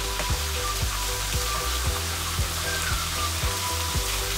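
Chopped onions, green chillies and ginger-garlic paste sizzling in hot oil in a frying pan while a spatula stirs them.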